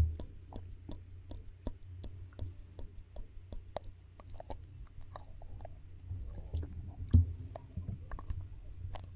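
Close-miked ASMR mouth sounds: irregular wet lip smacks and small clicks as lipstick is worked against the lips. A louder knock comes about seven seconds in.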